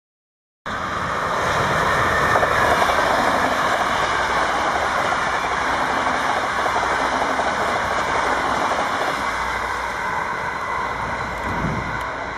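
Five coupled NS Plan V electric multiple units passing at speed, a steady rushing rumble of wheels on the rails. It starts abruptly in the first second and slowly fades as the train draws away.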